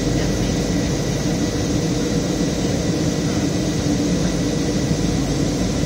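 Steady cabin noise of a jet airliner in descent, heard inside the cabin at a window seat: an even rush of engine and airflow noise with a few faint steady tones, unchanging throughout.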